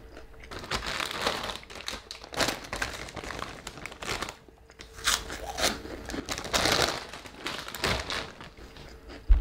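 A plastic chip bag of Flamin' Hot Cheetos Puffs crinkling as it is handled and tipped, in irregular rustling bursts.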